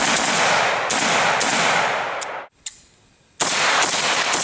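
AK-pattern rifle firing shots in quick succession, about two a second, each shot trailed by a long echo. The firing breaks off briefly about halfway through, then starts again.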